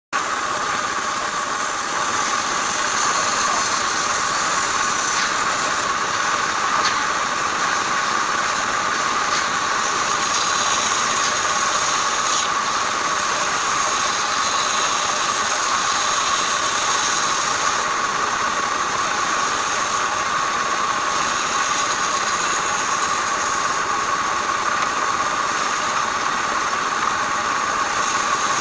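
Band saw running steadily while its blade cuts through a thick block of wood.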